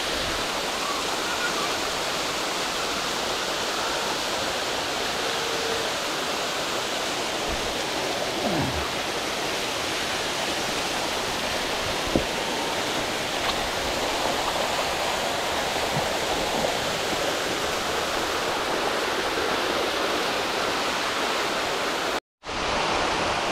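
Steady rushing of a small waterfall cascading over mossy rock close by. The sound drops out briefly near the end.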